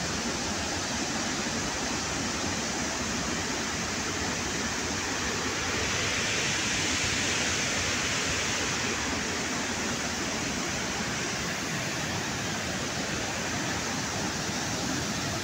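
Water pouring through the open spillway gates of a dam: a dense, steady rush of falling water, a little louder about six to eight seconds in.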